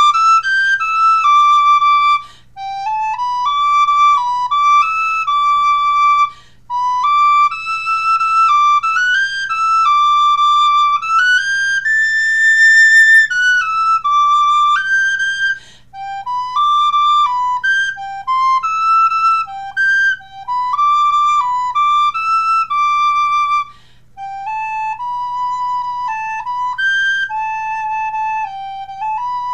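Wooden sopranino recorder playing a melody: a single line of notes stepping up and down, in phrases with a few short breaks. About halfway through it climbs to its highest note and holds it.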